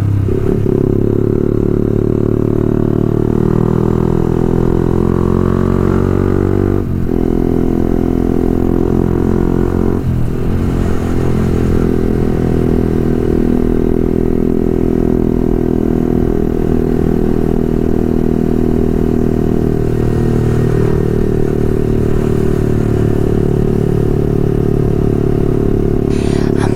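Motorcycle fitted with an aftermarket Pro Liner full-system exhaust, accelerating with rising engine pitch and shifting up twice, about 7 and 10 seconds in, then cruising at a steady pitch.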